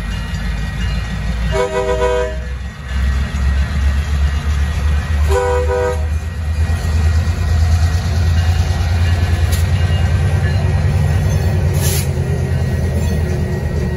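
Two EMD SW1500 switcher locomotives pass over a grade crossing, their diesel engines running louder as the second unit comes by. A locomotive horn sounds two blasts: the first about a second long, about two seconds in, and a shorter one a few seconds later.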